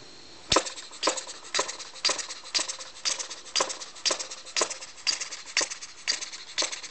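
Homemade model poppet-valve engine running on compressed air, starting about half a second in with a sharp puff and then running slowly and evenly with an exhaust puff about twice a second. It fires only once every four strokes, which its maker says uses all its power and keeps it from speeding up.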